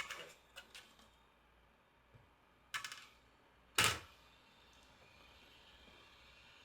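Small metal tools clicking and knocking on a workbench. There are a few light clicks at the start, a sharper click a little under three seconds in, and the loudest knock about four seconds in.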